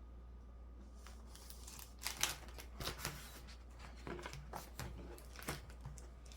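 Faint, scattered rustling and light clicks of paper being handled: planner pages and sticker sheets being moved and peeled. It starts about two seconds in after a brief quiet stretch.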